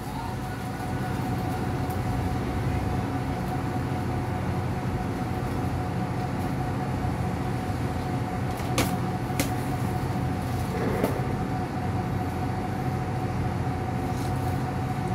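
A steady machine hum with a constant mid-pitched whine over a low rumble, and a couple of light clicks about nine seconds in.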